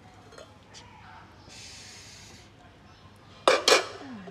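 Aluminium pot lid lifted off a bowl, with a hiss lasting about a second, then two sharp metallic clanks about three and a half seconds in as the lid is set down.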